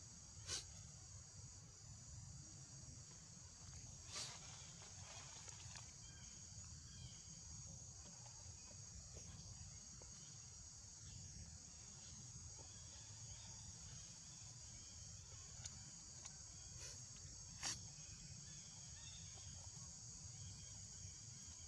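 Faint steady high-pitched insect chorus over a low rumble, with three brief clicks.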